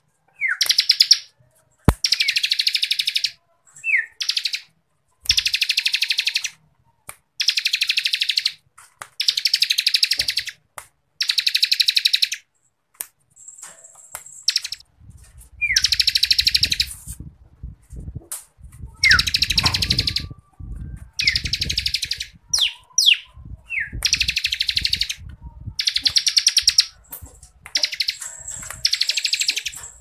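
Bar-winged prinia (ciblek kristal) singing its rapid rattling 'ngebren' song: dense buzzy trills about a second long, repeated again and again with short pauses, some led by a quick falling note. A low rumble sits under the song for several seconds midway.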